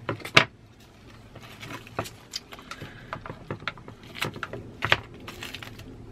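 Scissors snipping and plastic shrink-wrap crackling as a wrapped ink pad is cut open, with scattered small clicks of the plastic pad case being handled. Two sharp clicks near the start are the loudest.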